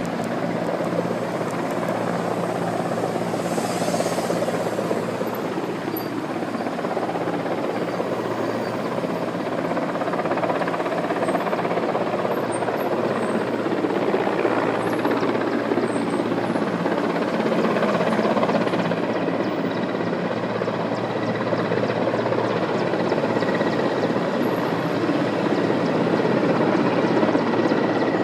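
Helicopter running, a steady mix of engine and rotor noise with a low hum.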